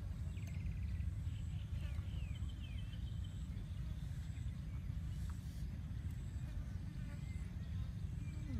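Steady low outdoor rumble, with birds chirping in the first few seconds: a short trill, a few quick descending whistles and a held high note.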